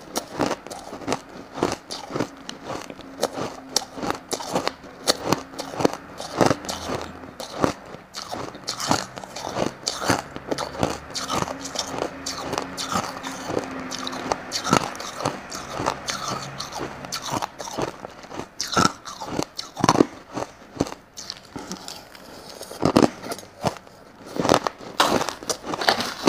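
Crushed ice being bitten and chewed close to a clip-on microphone: a dense, uneven run of sharp crunches and crackles, with a metal spoon scooping through the ice in a plastic tray now and then.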